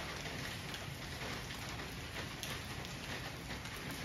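Steady rain falling, with occasional single drops ticking out above the hiss.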